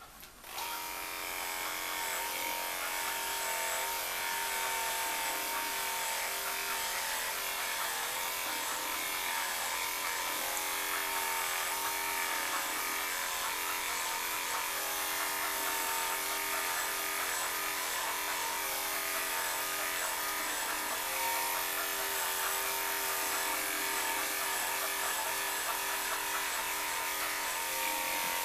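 Cordless electric pet clippers switched on about half a second in, then running with a steady buzz as they are worked through a cocker spaniel's coat.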